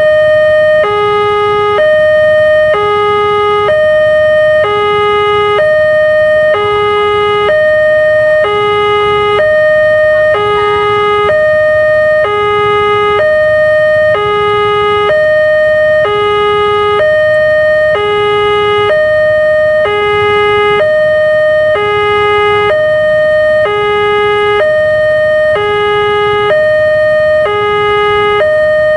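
Railway level-crossing warning alarm: an electronic two-tone signal alternating a higher and a lower tone, each about a second long, repeating steadily. It sounds while the barrier is down, warning of an approaching train.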